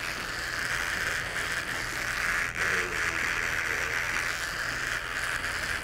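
Electric hair trimmer running with a steady buzz as it cuts the skin line of a skin fade.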